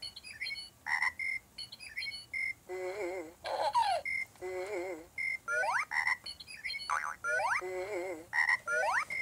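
Playskool Kick Start Gym's electronic sound effects: short wavering low notes, brief high beeps and rising chirps, repeating in a quick pattern about once a second.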